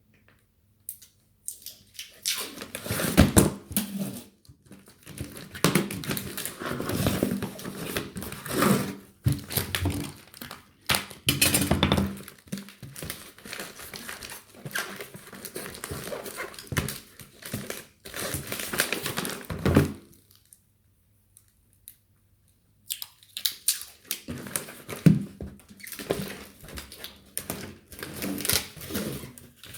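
Packing materials being handled: irregular crinkling, rustling and knocks of bubble wrap, cardboard and brown packing tape as a box is wrapped, with a pause of a few seconds about two-thirds of the way through.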